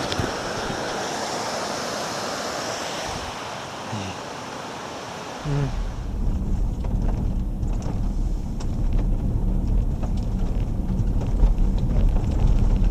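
Waterfall rushing steadily. About five and a half seconds in, a heavy low rumble of wind buffeting the microphone takes over and the rushing water drops back.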